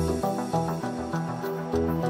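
Electronic intro music with held synth chords that change about every half second over a light ticking beat.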